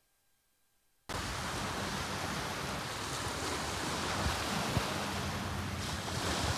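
Silence for about the first second, then a steady rush of wind on the microphone and small waves washing onto a shingle beach, with occasional low buffets of wind.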